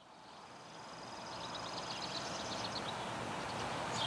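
Outdoor background noise fading in, with a bird singing a quick run of high chirps from about a second in.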